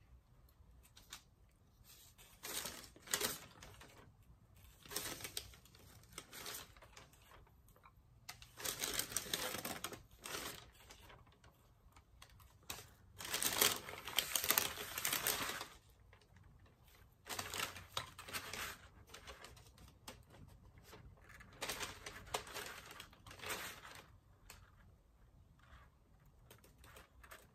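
Hands handling a gingerbread house kit's pieces and candies on a tabletop: irregular bursts of rustling and crinkling with small clicks and taps, the loudest about halfway through.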